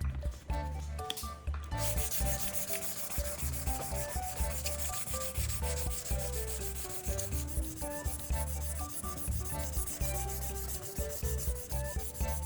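Sanding of a repaired plastic car bumper's surface: a steady, rapid scratching rub that starts about two seconds in, over background music with a steady beat.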